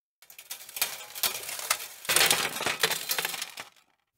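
Hard, gritty Foley material scraped and shifted in a Foley table's tray: two long gritty scrapes, the second louder, with small sharp clinks through them.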